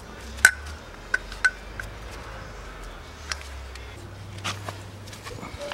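An engine piston with its connecting rod being handled: a few sharp metal clicks and clinks, the loudest about half a second in, with scattered lighter ones after.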